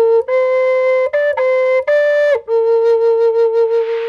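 Wooden flute playing a short melody of a few separate notes, then settling on one long held low note with a slight wavering vibrato. A soft rushing hiss swells under it near the end.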